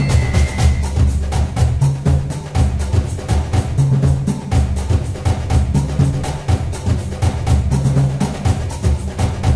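Background music: an upbeat track with a fast, steady drum beat over a bass line.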